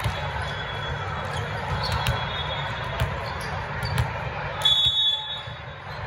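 Reverberant din of a large hall full of volleyball courts, with scattered sharp ball hits and bounces. About three-quarters of the way through comes a short high whistle blast, a referee's whistle.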